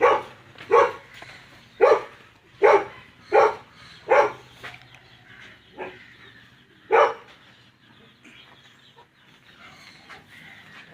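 A dog barking repeatedly, about eight sharp barks over seven seconds, then stopping.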